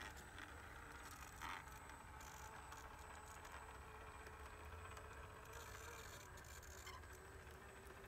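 Faint, steady whine of a scale RC crawler's small electric motor and gearbox, with light clicks and rattles as it crawls across a wooden plank bridge deck.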